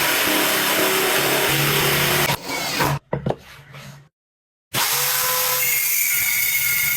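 An electric power tool running at speed with a steady motor hum. It cuts out about two and a half seconds in, followed by a few knocks and a brief gap, then runs again from about five seconds in.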